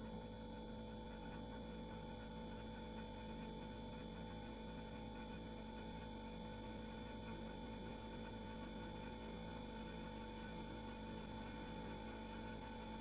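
Household refrigerator running: a steady, unchanging hum with a few constant tones over it.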